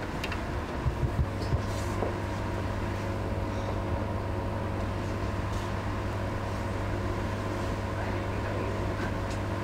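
Steady mechanical hum with a low drone and a few fixed tones over it, the sound of a fan or running equipment, with a few light clicks in the first two seconds.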